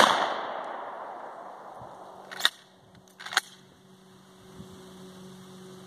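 A 12-gauge pump shotgun blast right at the start, its echo rolling away over about a second and a half, then the pump action worked back and forward: two sharp clacks about a second apart as the spent shell is ejected and a fresh one chambered.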